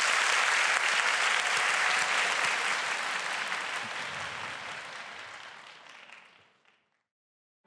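Audience applauding, dying away gradually over the second half.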